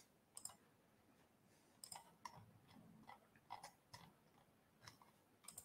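Near silence: faint room tone with about ten small, irregular clicks scattered through it.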